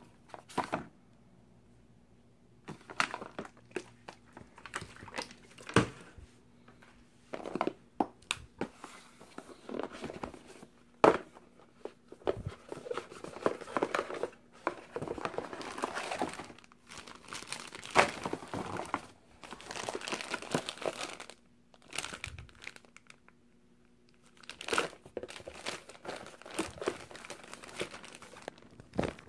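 Cardboard laptop-box packaging being handled: flaps and inserts pulled and folded with irregular rustling, scraping and knocks, with short pauses. A clear plastic bag crinkles near the end.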